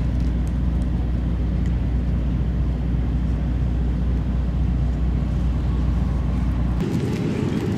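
Steady low rumble of a car being driven, road and engine noise heard from inside the cabin. Near the end the deepest part of the rumble drops away and the sound turns lighter.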